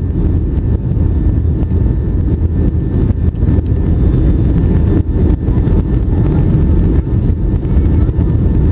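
Steady loud rumble of a jet airliner's cabin on final approach, the engines and airflow over the wing with its flaps extended, with a faint steady whine above it.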